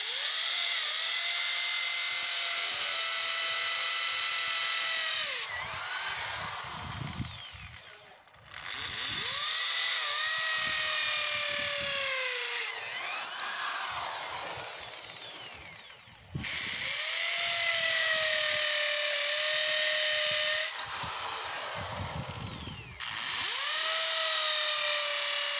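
Corded electric drill boring holes into a concrete floor for plastic wall plugs. It runs four times, each run starting with a rising whine, holding steady for a few seconds, then winding down as the trigger is released.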